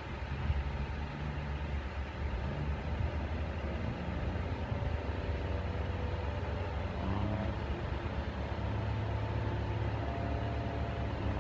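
A heavy diesel engine runs with a steady low drone. About seven seconds in, its pitch rises as it speeds up.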